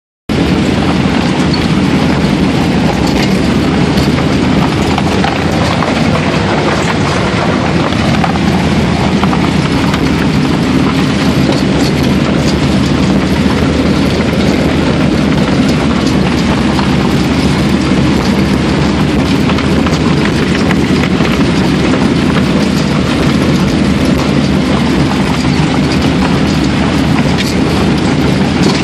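1949 Bombardier snow bus travelling at a steady speed, heard from inside its cabin: a constant, loud drone of engine and running gear.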